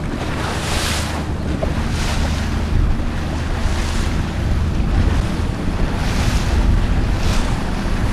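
Wind buffeting the microphone on a boat at sea, with sea waves washing and hissing against the hull in surges a few times.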